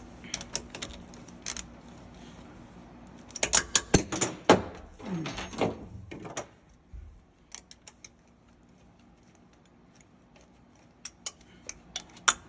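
Metal clicking and clinking of a ratchet and socket working a manifold bolt loose, in short bursts. The loudest run of clicks comes a few seconds in, with scattered clicks after it.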